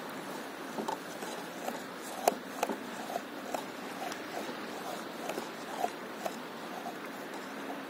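Small water sounds against an inflatable board at sea: irregular plops and light slaps, the sharpest about two seconds in, over a steady hiss of wind and water.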